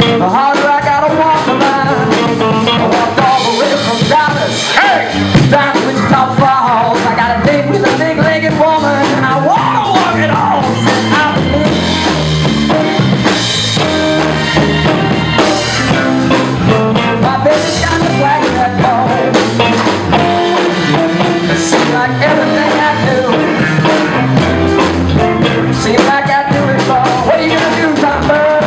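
A live blues-rock band playing loudly on electric guitars, electric bass and a drum kit.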